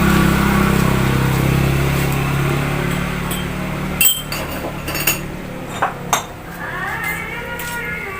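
A passing motor vehicle's engine hum fading away over the first few seconds, then several sharp metallic clinks of hand tools and engine parts being handled, about four to six seconds in.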